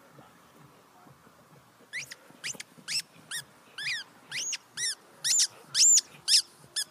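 A dog chewing a rubber squeaky ball: a run of sharp, high squeaks, about two a second, each rising and falling in pitch, starting about two seconds in and growing louder.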